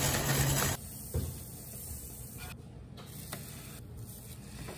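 French toast frying in butter on a stovetop griddle: a soft, steady sizzle with a few faint light clicks. Before that, under a second of louder outdoor noise with a low hum cuts off suddenly.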